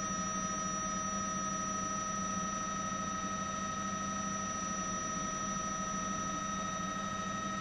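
Steady helicopter cabin noise: an unchanging rush with a low hum and several constant high whining tones, with no change in pitch or level.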